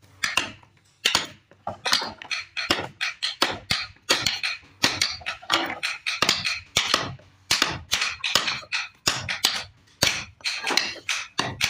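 Hand tools cutting and striking wood: a quick, irregular run of sharp knocks and cutting strokes, about three a second.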